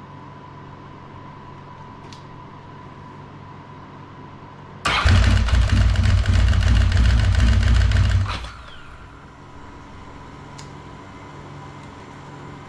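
Electric starter cranking the 1992 Ducati 900SS's engine, starting abruptly about five seconds in and stopping after about three and a half seconds.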